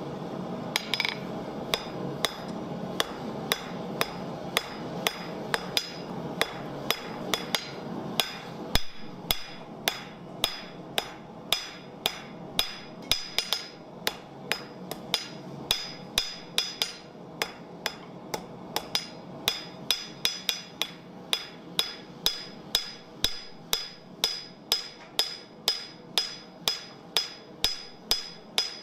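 Hand hammer striking a hot bar on a steel anvil in a steady run of blows, about two a second, each with a bright ring from the anvil.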